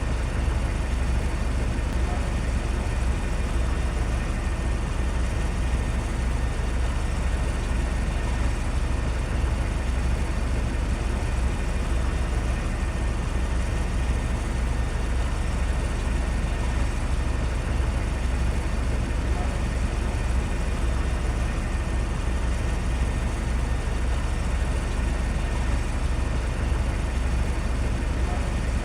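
Steady low rumble with an even hiss above it, unchanging throughout.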